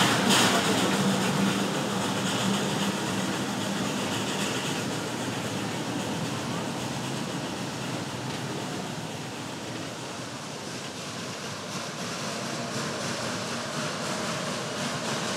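Narrow-gauge geared steam train moving away. A last exhaust chuff comes right at the start, and a steady low tone holds for the first four seconds or so. Then an even rolling noise slowly fades.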